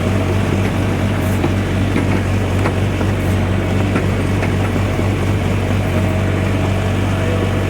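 Backhoe's diesel engine running steadily with a constant low hum, mixed with machine rattle and a few light clicks.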